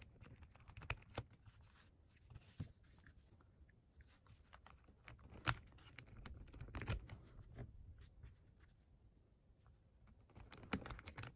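Faint, scattered clicks and taps of the plastic pieces of a GAN 356 XS magnetic speedcube being fitted into place by hand, with one sharper click about five and a half seconds in.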